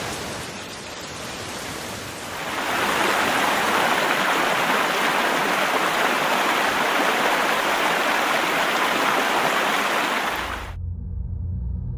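Rushing flood water: a steady, noisy rush that swells about two and a half seconds in and cuts off suddenly near the end, where a low rumble takes over.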